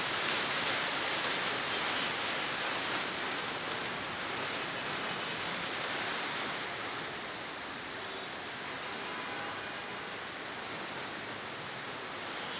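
Steady rain falling, an even hiss that eases slightly a few seconds in.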